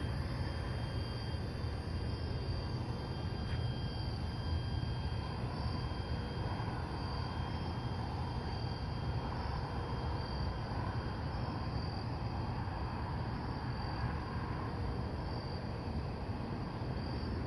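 Night insects chirping in faint repeated high pulses over a steady low rumble.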